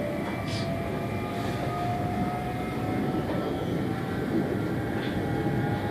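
Diesel passenger train running along the track, heard from inside the carriage: a steady rumble of wheels and running gear, with a whine that rises slowly in pitch as the train gathers speed.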